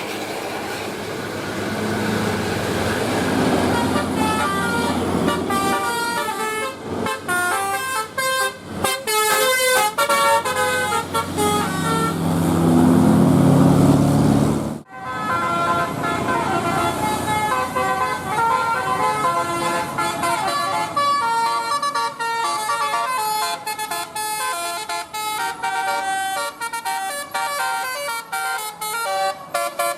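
Bus 'telolet' multi-tone horn playing rapid runs of short notes, over a bus engine running. The sound breaks off abruptly about halfway through and another telolet tune follows.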